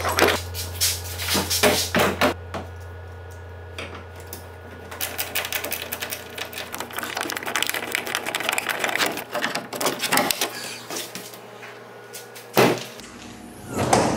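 Quick clicks, rattles and knocks of hard plastic deck-box parts being handled and fitted during assembly, over a low steady hum that stops near the end. Two louder knocks come near the end.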